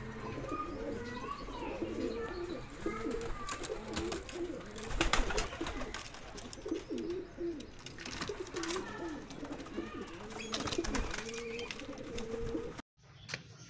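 Several domestic pigeons cooing over one another in repeated low calls. A burst of sharp clatter comes about five seconds in. The sound breaks off suddenly near the end.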